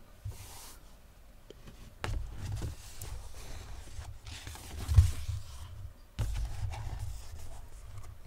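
Low rumbling thuds and small clicks from a handheld phone being carried along, with footsteps on a stone floor. The loudest thud comes about five seconds in.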